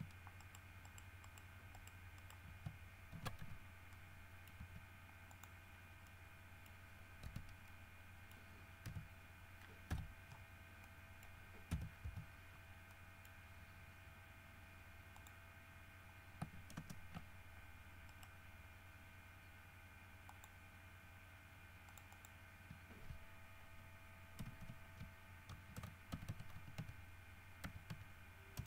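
Faint computer keyboard and mouse clicks, irregular and coming in small clusters, over a steady low hum.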